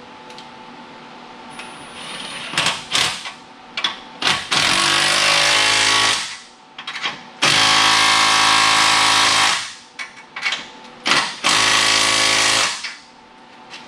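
Cordless impact wrench running in several bursts, tightening the nuts of exhaust pipe clamps under a truck. The longest burst runs about two seconds near the middle, and a few short clicks come between the bursts.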